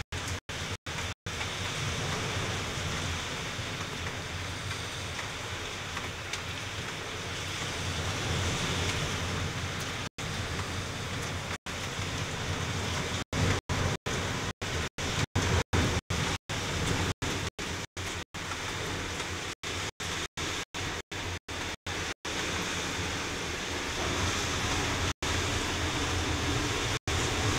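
Heavy rain pouring in a steady hiss during a harsh rainstorm. The sound cuts out for an instant again and again, most often in the second half.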